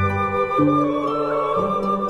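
Intro music: a slow, melodic instrumental with sustained notes changing about every half second.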